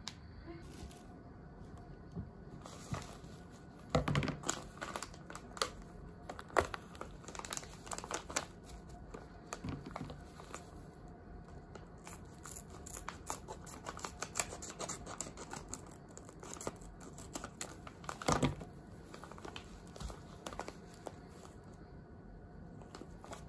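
Foil coffee bag crinkling as it is handled, among light clicks and knocks of glass and tableware being set down on a table. There are louder knocks about four seconds in and again near eighteen seconds.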